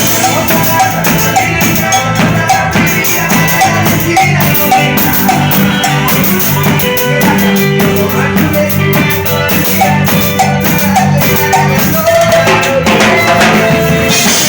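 Live cumbia band playing, the drummer's drums to the fore marking breaks over a repeating bass line.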